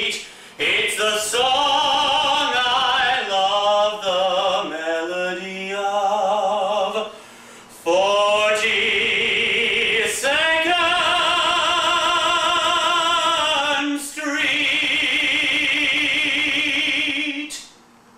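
Operatic-style singing in long held notes with a wide vibrato, in several phrases with short breaks between them. It stops shortly before the end.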